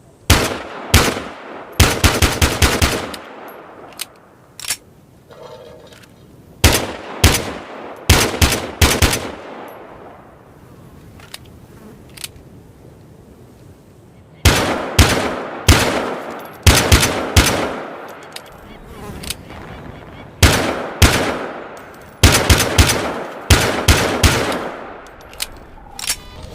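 Vickers Tactical 1911 pistol being fired: single shots and quick strings of several shots, each with a short echoing tail. They come in bursts separated by pauses of a few seconds.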